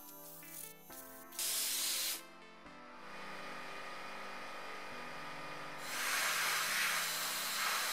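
Hobby-level air-fed abrasive blaster spraying media against the bare steel of a car's wheel arch. A short blast comes about a second and a half in, then a steady hiss starts about 3 s in and gets louder around 6 s. Background music plays under it.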